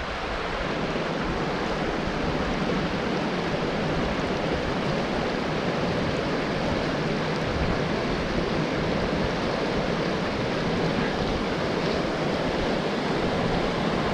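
A small mountain stream rushing steadily over a low cascade into a pool.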